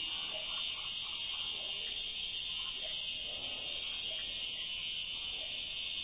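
Slowed-down field recording between bird calls: a steady high hiss with a few faint, short, low sounds scattered through it.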